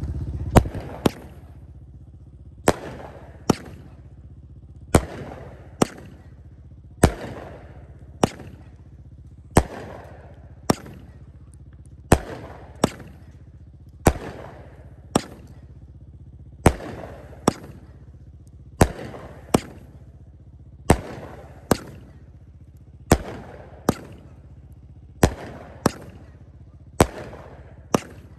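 Sky Song Fireworks 'Twilight' 45-shot consumer fireworks cake firing: a steady run of sharp bangs, about one a second and often in close pairs, each trailing off briefly.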